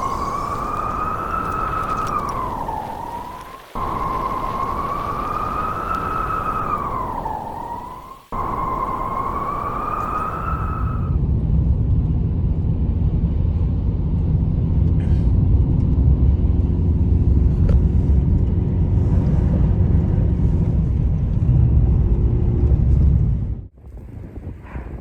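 Howling blizzard wind: a whistling tone that wavers up and down, broken off abruptly twice, then from about eleven seconds in a heavy low rush of wind buffeting the microphone, which cuts off suddenly near the end.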